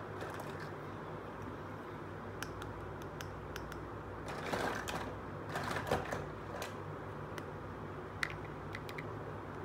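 Small plastic toy kitchen pieces being handled: a few light plastic clicks and a stretch of rustling and clattering in the middle, as a toy cup is set on a plastic plate. A steady low hum runs underneath.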